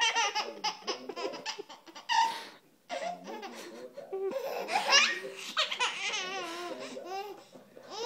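A baby girl laughing hard in repeated bursts, with a brief pause about three seconds in.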